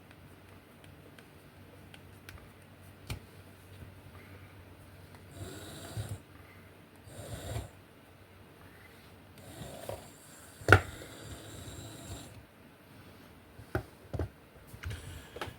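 Handling noises from working on a small plastic remote-control car: scattered clicks and several short rubbing, scraping bursts, with one sharp click about two-thirds of the way through as the loudest.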